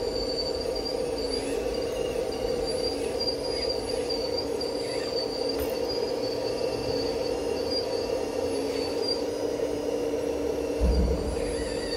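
Electric drive motors and gearing of a radio-controlled Liebherr 954 model excavator whining steadily while it works, with thin high squealing tones that waver as the motors load up. A low thump near the end.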